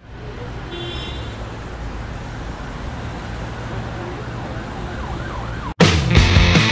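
Steady low street rumble with a faint siren wailing, rising and falling. About six seconds in it cuts out abruptly and loud rock music with a driving beat starts.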